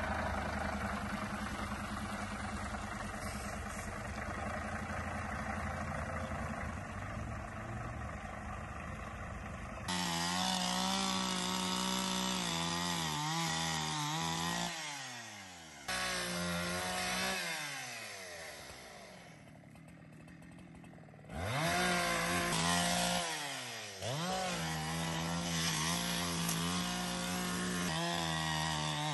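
For about the first ten seconds, a steady engine hum. Then a petrol chainsaw cutting up the trunk and branches of a fallen tree: it runs at full throttle, drops back toward idle around two-thirds of the way through, then revs sharply up again and keeps cutting, with a brief dip in revs soon after.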